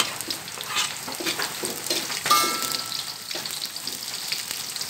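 Sliced chilies, shallots and garlic sizzling in hot oil in a wok while a spatula stirs, clicking and scraping against the pan. A brief metallic ring from the wok about two seconds in is the loudest moment.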